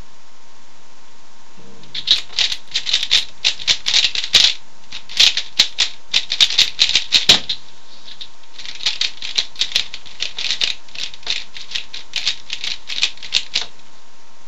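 3x3 Rubik's cube being turned rapidly with only R and U face moves: two runs of fast plastic clicking, the second starting about a second after the first stops.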